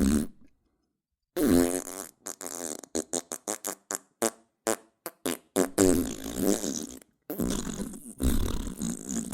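A run of fart sounds: one long one, then a quick string of about a dozen short pops, then two long drawn-out ones near the end.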